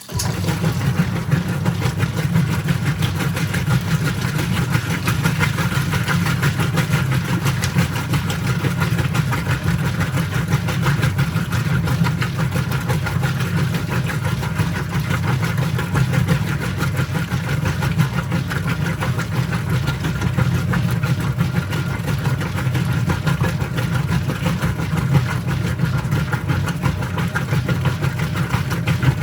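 Whirlpool top-load washing machine's motor kicks in abruptly and runs steadily with a low hum, agitating the load once the tub has filled.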